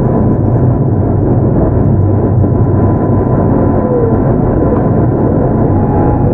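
Keio 8000-series electric train (unrenewed, Hitachi GTO-VVVF traction) running at steady speed, heard from inside the car: a continuous heavy rumble of wheels on rails with a faint steady high tone.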